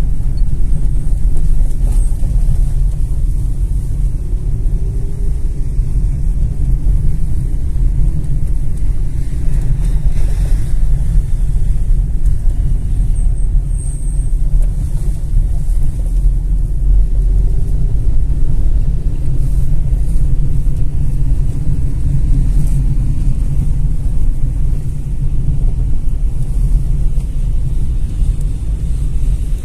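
Steady low rumble of a car in motion, engine and tyre noise heard from inside the cabin.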